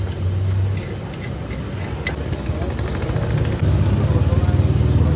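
Steady low engine rumble, as of a vehicle idling close by, swelling louder after about three and a half seconds, with a few light clicks and taps of vegetables being scraped off a wooden board into a pan.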